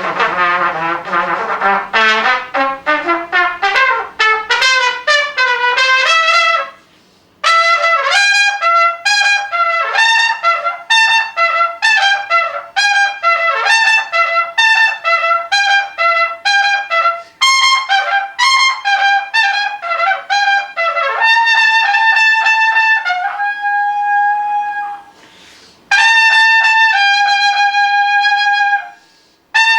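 Unaccompanied solo brass instrument, trumpet-like, playing fast runs of notes, starting with a rising run. It pauses briefly twice and ends on several long held notes.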